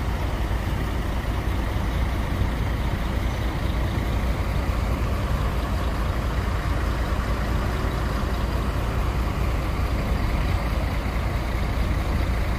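Steady low rumble of large diesel buses idling and moving slowly, with no single sound standing out.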